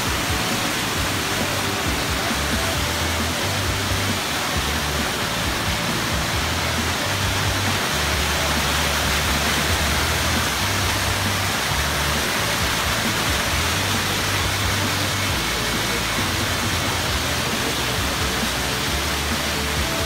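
Steady rush of a waterfall and stream running over rocks, with a low, uneven rumble underneath.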